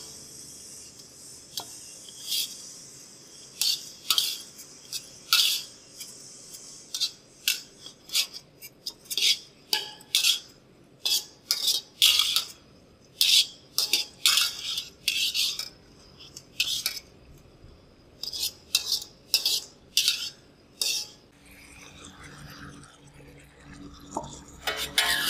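A cooking utensil scraping and clinking against a pan while octopus pieces are stir-fried in sauce. The strokes come irregularly, about one or two a second, with a short lull about two-thirds of the way through.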